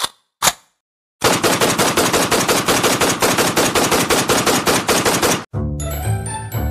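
Automatic rifle gunfire: two single shots half a second apart, a short pause, then a long rapid burst of about four seconds that cuts off suddenly.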